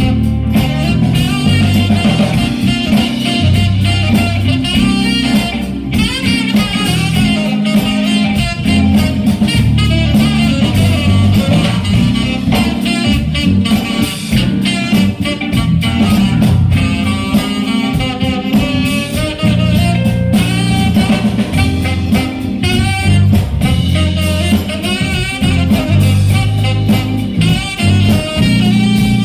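Live smooth-jazz band playing: saxophone carrying the melody over electric guitar, electric bass, keyboards and drum kit, with a steady bass groove throughout.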